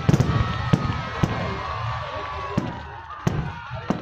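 Aerial fireworks shells bursting overhead: about six sharp bangs at uneven intervals over a continuous low rumble.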